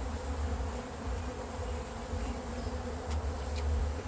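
Steady buzzing hum of a mass of honey bees around an open hive.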